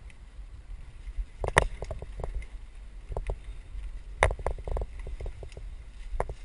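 Mountain bike riding over a bumpy dirt trail, heard from a helmet-mounted camera: a steady low rumble with sharp clanks and rattles of the bike as it hits bumps, the loudest about one and a half and four seconds in.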